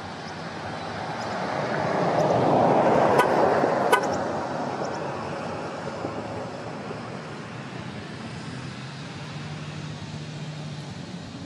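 A vehicle passing by, building to its loudest about three seconds in and then fading away, with two sharp clicks near the peak.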